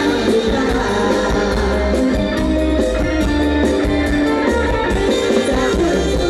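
Live band music with singing from a Thai Isan concert troupe's stage band: electric guitar, drums and a group of singers, playing loud and steady.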